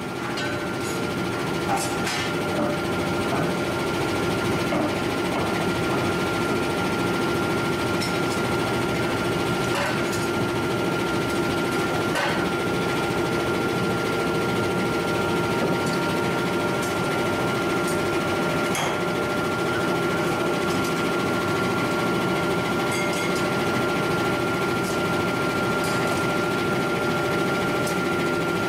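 Forging machinery running steadily: a constant mechanical drone with a steady high whine over it. A few light metallic clinks sound now and then.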